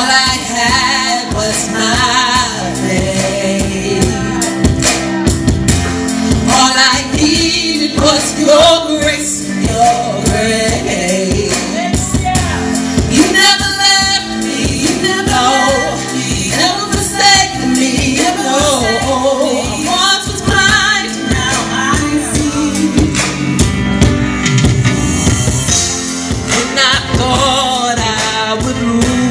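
A woman singing a gospel song into a handheld microphone over musical accompaniment with a steady beat.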